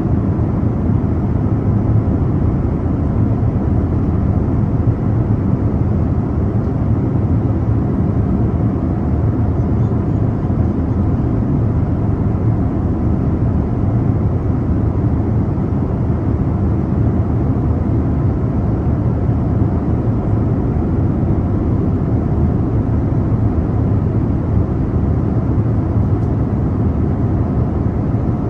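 Airliner cabin noise in flight: a steady, unbroken deep rumble of engines and rushing air, with no change over the whole stretch.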